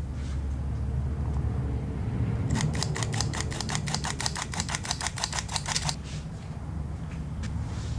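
Stainless steel hand-held flour sifter being worked rapidly, its mechanism giving a fast run of metallic clicks for about three seconds as cocoa powder is sifted through.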